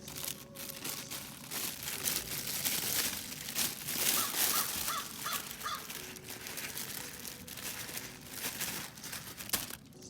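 A bird calls four times in quick succession about four seconds in, over a steady crackling, crunching noise like snow or leaves being disturbed.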